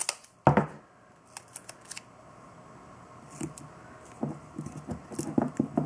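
Masking tape being handled and pressed by hand onto the copper base of a CPU water block: scattered light crackles and taps, with a sharper knock about half a second in.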